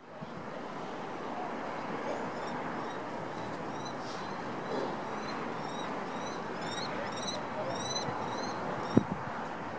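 Small birds chirping in quick, repeated short high notes over a steady background hum, with one sharp knock near the end.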